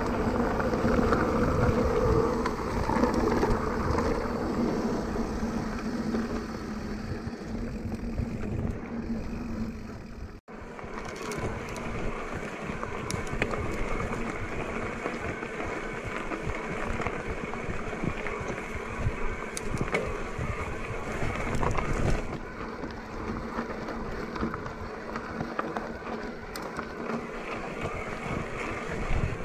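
Cannondale Moterra 2 electric mountain bike riding over a dirt forest trail: steady wind noise on the action camera's microphone and tyre rumble, with occasional knocks and rattles from the bike. It is louder while riding fast in the first part, and the sound drops out briefly about ten seconds in, after which the bike climbs slowly.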